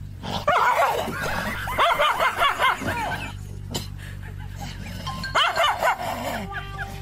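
Dogs barking and snarling at each other in three short bursts, over background music.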